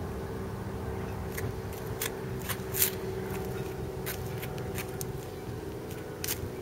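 Steady low engine hum with scattered sharp clicks and taps over it, the loudest about three seconds in.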